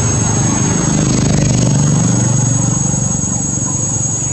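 Motorcycle engine running close by; its pitch rises and falls once between about one and three seconds in.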